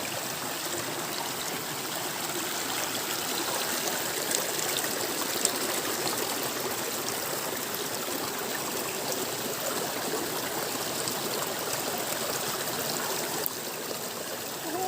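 Hill stream flowing: steady rushing, trickling water, a little quieter for the last second or so.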